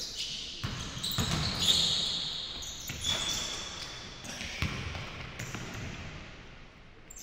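Basketball bouncing on a hardwood gym court during play, several separate thuds, with short high sneaker squeaks on the wooden floor.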